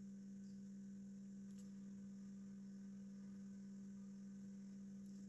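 Faint steady hum on one low tone, otherwise near silence.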